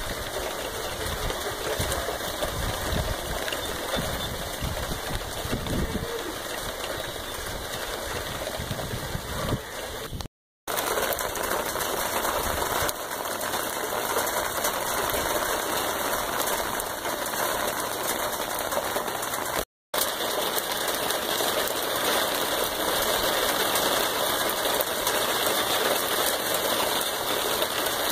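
Steady heavy rain falling and pattering on a concrete patio and a stainless steel gas grill. A low rumble comes and goes through the first ten seconds.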